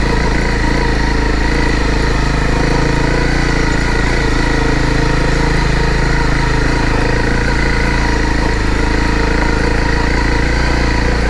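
Honda CRF250 dirt bike's single-cylinder engine running at a steady, even speed while the bike is ridden along a rocky dirt trail.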